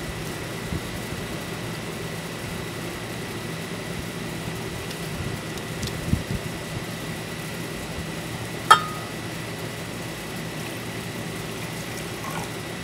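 A steady low mechanical hum with one sharp clink about nine seconds in. Near the end, vinegar starts pouring from a bottle into a glass measuring cup.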